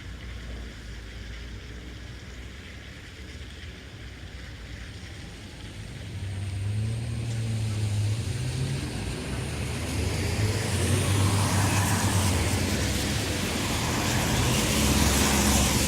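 Town traffic on a wet road. A vehicle's engine hum comes in about six seconds in, and the hiss of tyres on wet tarmac builds to its loudest near the end as the traffic gets close.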